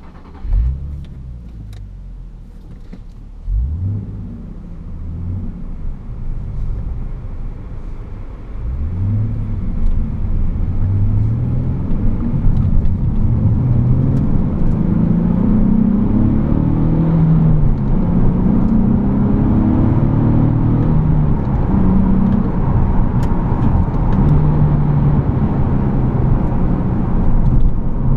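Nissan 370Z Nismo's 3.7-litre V6 engine and exhaust heard from inside the cabin. It revs briefly twice early on. Then, from about eight seconds in, it pulls hard through several gears, the note climbing and falling back at each shift.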